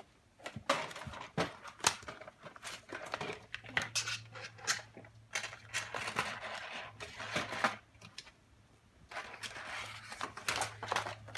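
Packaging being opened by hand: plastic and paper crinkling and tearing with many sharp clicks. It comes in two spells with a short pause between them.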